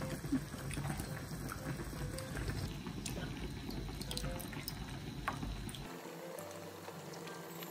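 Water being poured into a stainless steel pan, a steady splashing rush that stops abruptly about six seconds in.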